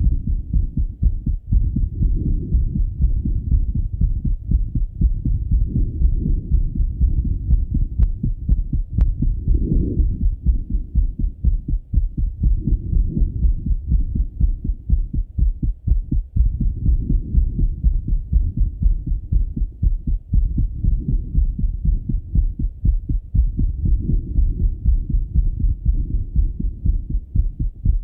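A man's heartbeat heard through a Littmann stethoscope, after a run: a steady, unbroken series of low beats.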